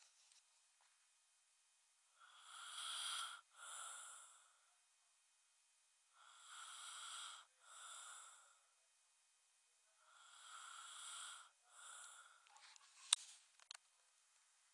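Snoring: three breaths about four seconds apart, each a longer snore followed by a shorter one, with a couple of sharp clicks near the end.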